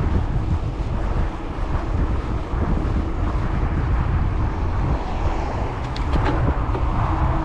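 Wind buffeting the microphone of a chest-mounted action camera on a moving gravel bike: a steady low rumble, with a few faint ticks about six seconds in.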